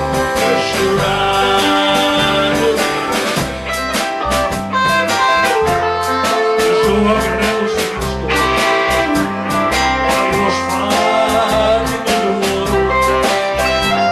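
Band music with guitar, bass and a steady drum beat.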